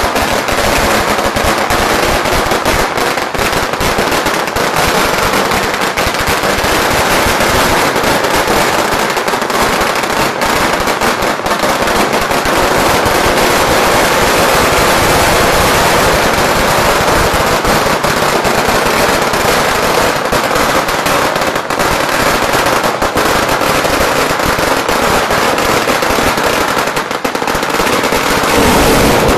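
A 100,000-shot firecracker string going off on the ground: a dense, unbroken rattle of rapid bangs that stops abruptly at the very end.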